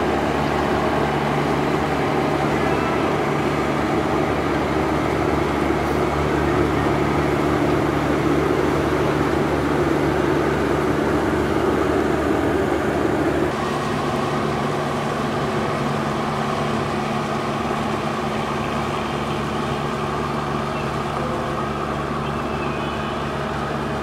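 Ship's diesel engines running with a steady hum of several low tones. About halfway through, part of the sound cuts off and it becomes a little quieter.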